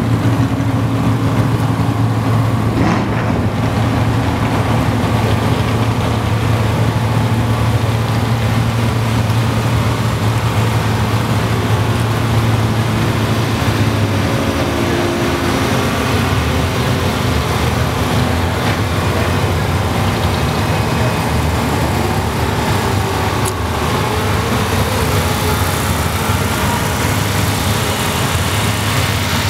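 Twin-turbocharged, alcohol-injected Pro Mod V8 idling steadily during its warm-up, its pitch dropping slightly about halfway through.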